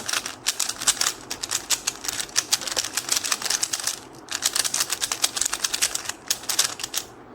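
A QiYi Sail 3x3 speed cube turned fast in repeated trigger finger tricks: a rapid run of plastic clicks from the layers snapping round, with a brief pause about four seconds in, stopping just before the end.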